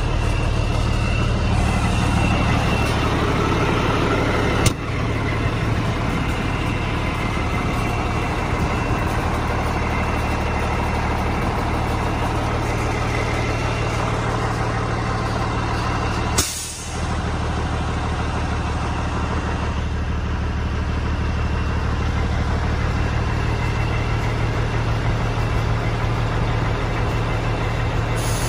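International 9200i dump truck's diesel engine running steadily with the dump body raised on its hydraulic hoist. There is a sharp click about five seconds in and a brief sharp sound with a short drop in level about sixteen seconds in.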